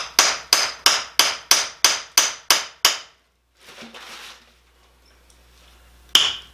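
Hammer blows on a masonry chisel cut into a basalt zeolite rock: a quick, even run of about three strikes a second that stops about halfway, a short soft noise, then one more strike near the end. The chisel is being worked along the rock's natural fault line to start a crack.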